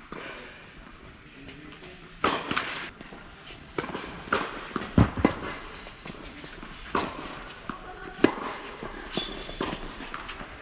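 Tennis ball struck by rackets and bouncing on an indoor court, a string of sharp pops about a second or so apart, with footsteps on the court between them.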